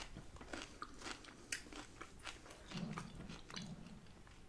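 Faint close-up chewing of crunchy food, with scattered small wet mouth clicks and crunches.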